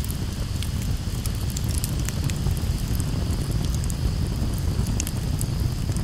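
Campfire crackling, with sharp irregular pops and snaps over a steady low rumble.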